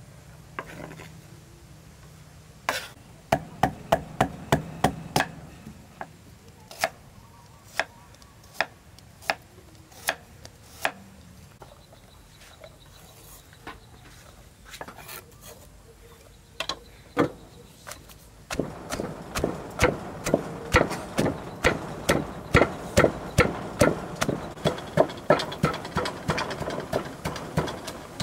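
Knife chopping food on a wooden cutting board: a quick run of chops, then a few single chops, then steady fast chopping, about three chops a second, from a little past the middle.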